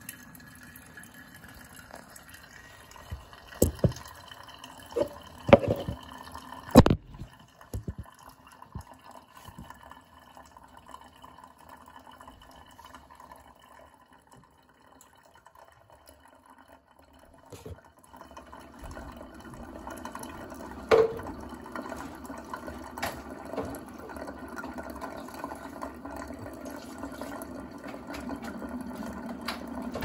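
Bunn VPR Series commercial pour-over coffee maker brewing: hot coffee streaming and dripping from the brew funnel into a glass decanter as the pot fills. The pour is faint through the middle and grows steadier and louder from about two-thirds of the way through. There are a few sharp knocks in the first several seconds.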